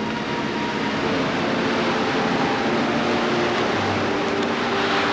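Steady rushing outdoor noise that grows a little louder, with soft held tones of background music underneath that change pitch every second or so.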